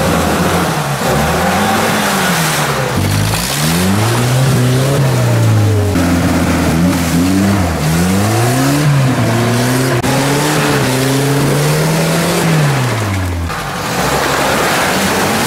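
Engines of UAZ-469 and GAZ-69 off-roaders revving hard in deep mud: the engine note climbs and drops again and again over a steady hiss of spinning wheels and churned mud. The revving stops about two seconds before the end.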